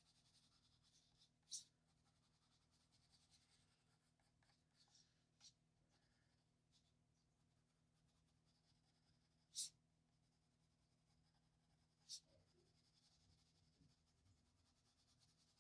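Faint scratching of a white colouring pencil rubbed over paper in short stretches of strokes, with three sharp clicks: one near the start, two more about two-thirds of the way in.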